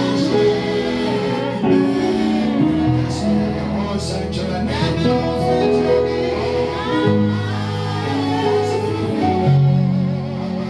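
Gospel worship music with singing over steady instrumental backing.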